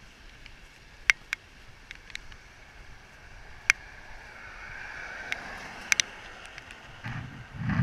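A car's tyres hissing on wet pavement as it passes, swelling from about halfway through. A few sharp clicks come earlier, and a louder low rumble begins near the end.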